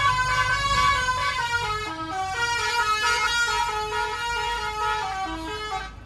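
Musical bus horn imported from India, playing a quick tune of stepped notes. The horn cuts off abruptly at the end, over the low rumble of the bus engine.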